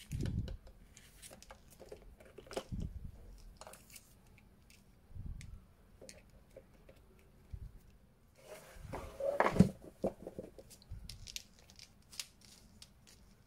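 Handling noise from a beyerdynamic Blue BYRD (2nd Gen) neckband earphone set: the rubbery cable and neckband rustle and brush, with small clicks and a few soft knocks against the case and surface. It gets busier and louder for a couple of seconds about two-thirds of the way through.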